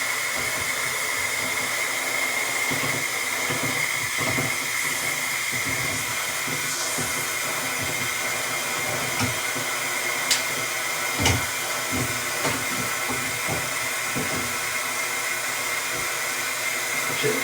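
Water rushing through a hand-held shower head in a steady hiss with a thin high whistle, and a few short knocks about ten and eleven seconds in.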